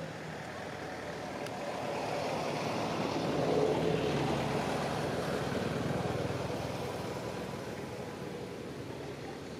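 A motor vehicle passing by: its steady engine and road noise swell to a peak about four seconds in, then slowly fade away.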